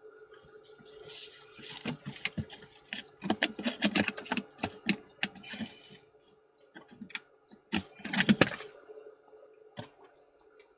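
Close rustling and clicking of hands handling fishing gear (net mesh, straps and plastic buckles), in two busy spells with a few lone clicks, over a faint steady hum.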